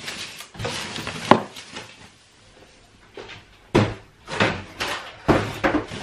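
Cardboard box and packaging paper rustling and scraping as a deep fat fryer is unpacked, with a few sharp knocks of the box and the plastic fryer body against the worktop.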